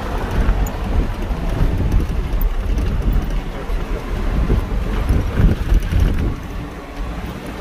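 Steady outdoor rumble: wind buffeting the microphone over the rushing hiss of a fast glacial river.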